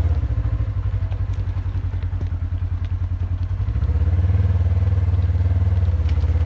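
ATV engine running on the move, with a fast, even low pulse. It grows louder about four seconds in.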